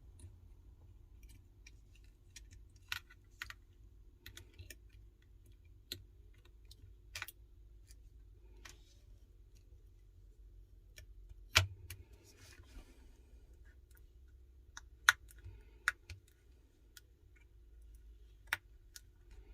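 Small, sparse clicks and taps of tools and parts against an iPhone 12 as its main board is fitted into a new housing. There is a louder click about halfway through and another about three quarters through, over a faint steady hum.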